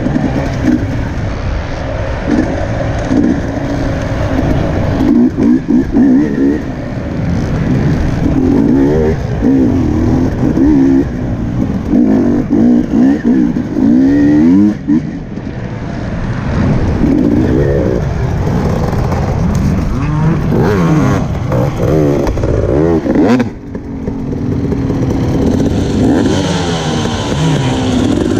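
Off-road racing motorcycle engine revving up and down over and over, as the rider works the throttle and gears along the trail. About 23 seconds in, the throttle closes for a moment before the engine picks up again.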